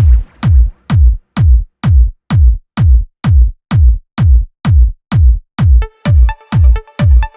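Electronic dance music with a kick drum on every beat, about two beats a second. A pitched synth riff comes in about six seconds in.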